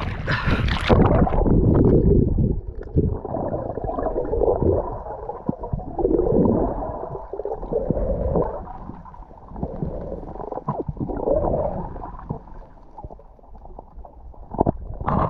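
A splash as the camera goes under the surface, then the muffled sound of water heard from a camera underwater: bubbling and gurgling, with scattered clicks and a brief brighter burst near the end.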